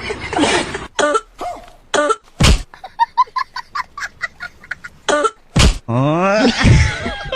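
A person coughing and clearing their throat, several short coughs one after another.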